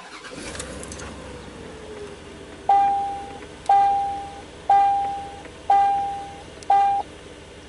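Chevy Silverado engine starting and settling into a steady idle, then the truck's warning chime sounding five times, about once a second, each tone fading as it goes.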